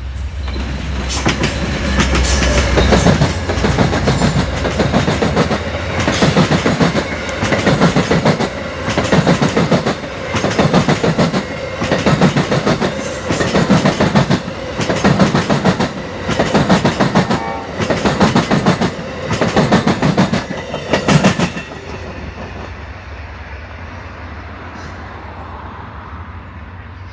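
Amtrak Silver Star passenger train passing close by: a low diesel locomotive rumble as it arrives, then the rhythmic clickety-clack of the cars' wheels, a loud burst about every second and a half. The clatter stops abruptly about 22 seconds in.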